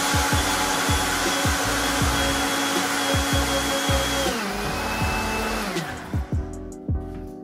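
Countertop jug blender running steadily as it blends a liquid batter of milk, sugar, melted butter and eggs. About four seconds in its motor pitch drops and it winds down to a stop by about six seconds. Guitar music comes in near the end.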